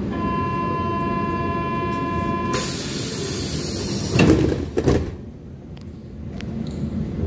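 Berlin U-Bahn F92 train's door-closing warning: a steady beep for about two and a half seconds, then a sharp hiss and the sliding doors shutting with two thuds about four seconds in.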